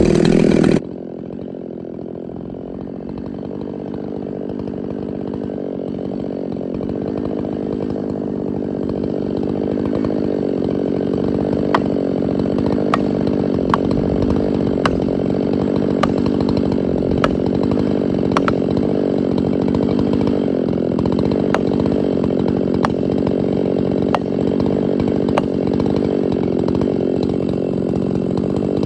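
Chainsaw comes off high revs about a second in and settles into a steady idle. Sharp ticks come about once a second through the second half.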